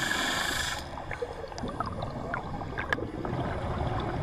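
Underwater sound around a working diver: a loud steady hiss that cuts off just under a second in, then low rumbling with scattered bubbling pops and clicks.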